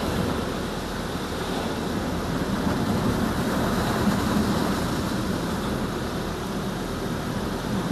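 High-pressure water jets of a Laserwash touchless car wash spraying onto the windshield and body, heard from inside the car as a steady rushing hiss. The spray starts suddenly, right at the beginning.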